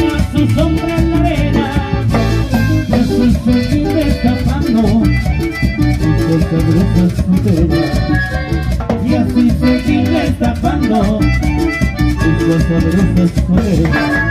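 Live band playing a Latin dance tune: piano accordion carrying the melody over electric bass, acoustic guitar and timbales keeping a steady dance beat.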